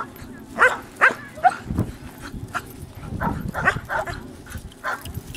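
Belgian Malinois barking repeatedly, about two short, sharp barks a second, at a decoy during bite-work training.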